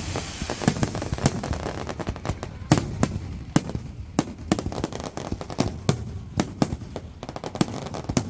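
Fireworks display going off: a fast, irregular string of sharp bangs and pops, several a second, with crackling between them.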